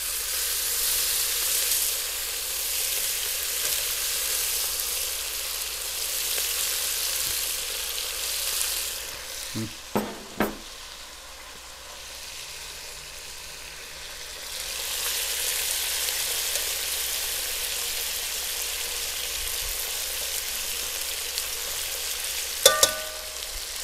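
Beef strips sizzling as they fry in hot oil in a pot while being stirred. The sizzle eases about nine seconds in, with a couple of knocks, then picks up again about fifteen seconds in. A ringing clink comes near the end.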